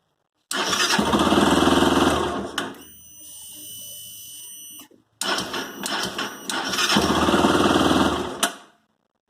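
Honda CB 300 engine turned over on the electric starter twice, each attempt lasting two to three seconds, with sharp snapping clicks near the start of the second. Between them a fainter steady whine. The snaps inside the engine at start-up are the fault the owner is asking about.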